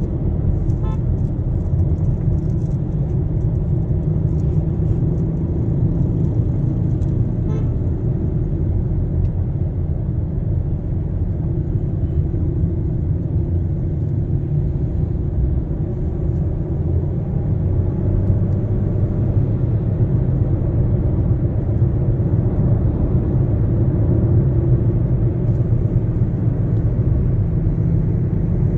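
Steady low rumble of road and engine noise heard inside a moving car's cabin while driving through town traffic.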